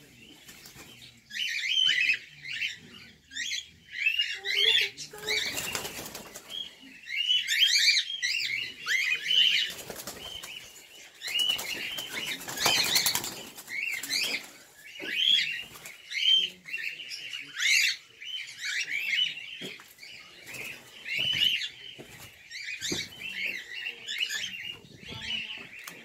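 A flock of cockatiels chirping constantly in short, repeated calls, with loud bursts of wing flapping about five to seven seconds in and again about twelve to fourteen seconds in.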